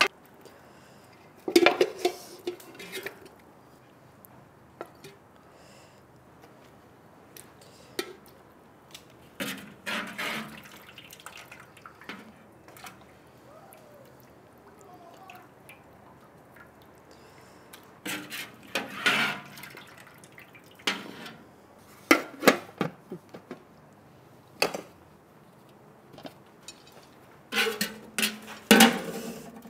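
Intermittent kitchen clatter: pots, dishes and utensils knocking and clinking in scattered short bursts, with some water dripping.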